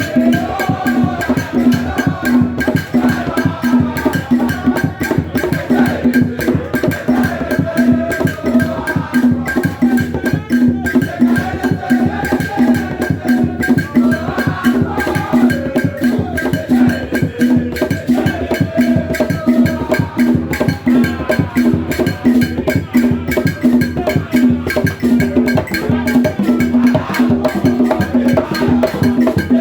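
Loud music with fast, dense percussion and a wavering melody line over a steady low tone, playing without a break.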